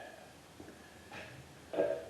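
A few light clicks and knocks of objects being handled on a workbench, the loudest one near the end, over quiet room tone.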